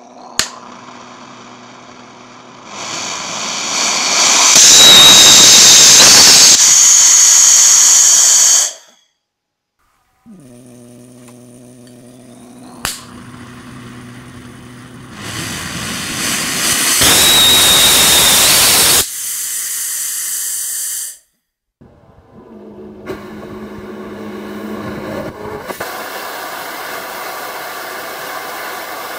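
Homemade ethanol and gaseous-oxygen rocket engine firing: a sharp click, then a loud hiss that builds over a couple of seconds and cuts off abruptly, heard twice. Then a quieter steady hiss from a weaker burn, which the builder suspects is short of oxygen and giving less thrust.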